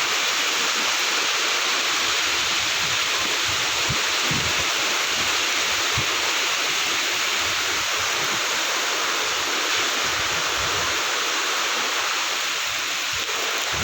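Heavy rain pouring down steadily in strong wind, with gusts now and then buffeting the microphone.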